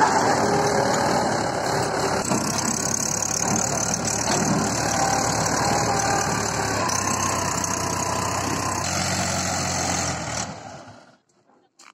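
Mahindra 475 DI tractor's four-cylinder diesel engine running steadily while it pulls a trailer across a gravel riverbed. The sound cuts off suddenly about ten and a half seconds in.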